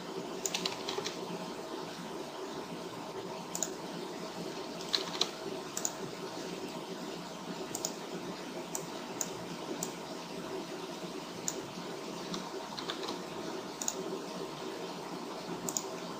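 Irregular, scattered clicks of a computer keyboard and mouse during 3D modelling work, about one a second, over a steady low hum.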